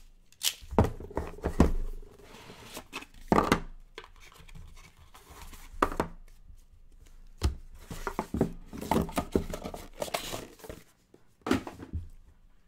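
Hands opening and handling a cardboard trading-card box: irregular taps, knocks and scraping, with some tearing.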